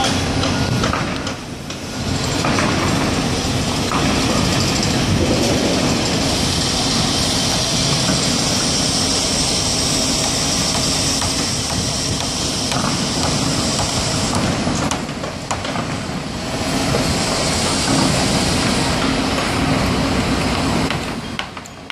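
Construction-site machinery running: a loud, continuous engine noise with a steady low hum and a hiss above it.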